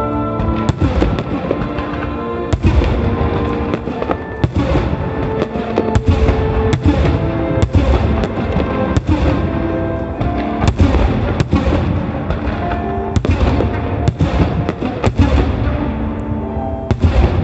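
Aerial firework shells bursting one after another, about one or two booms a second, over music playing throughout.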